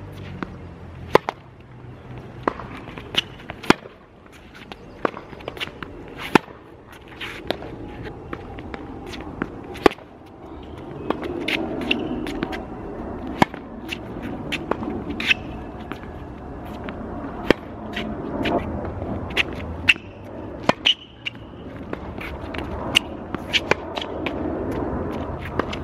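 Tennis rally on a hard court: a Tecnifibre TFight ISO 300 racquet's strings hitting the ball and the ball bouncing, sharp pops coming irregularly about every second. Footsteps scuff on the court surface between shots.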